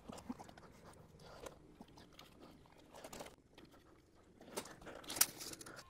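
Faint scattered clicks and crunches of a tripod being raised and its height adjusted, with feet shifting on gravel. The loudest clicks come near the end.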